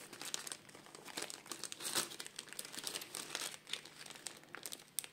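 Plastic packaging bags crinkling as they are handled, a fairly quiet run of irregular small crackles with a louder one about two seconds in.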